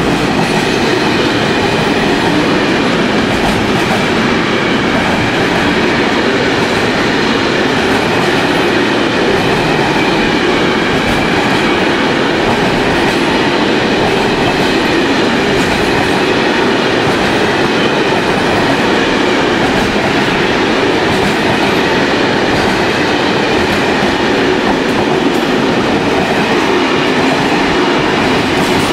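Container freight train's wagons rolling past at speed, close by: a loud, steady rumble of wheels on rails with clickety-clack.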